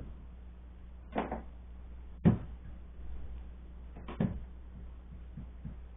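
Kitchen knife cutting through an apple and knocking on a plastic cutting board: a few separate knocks, the strongest about one, two and four seconds in.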